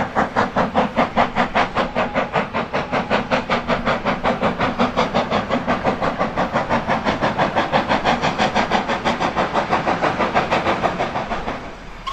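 Steam locomotive working hard up a steep 1-in-13 gradient after a hill start: rapid, sharp exhaust beats, about five a second, with steam hiss. The beats fade near the end.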